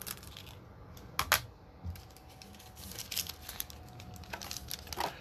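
Baseball trading cards and their pack wrapper being handled: rustling and crinkling with short sharp crackles, loudest about a second in and again in a cluster around three seconds in.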